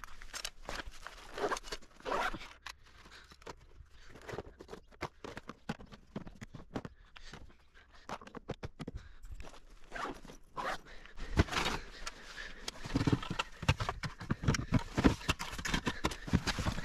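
Fishing gear being packed up by hand: a run of irregular clicks, scrapes and rustles from a plastic tackle box, bags and zips. Louder knocks come near the end as the gear goes into a car boot.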